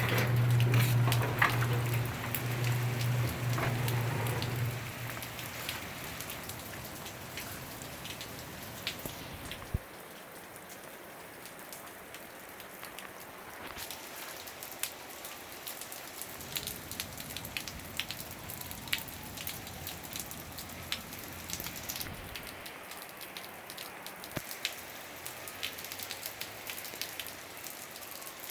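Hail falling and striking hard surfaces: a steady hiss broken by many sharp, separate ticks of individual stones hitting. A low steady hum runs under it for the first five seconds or so and then stops.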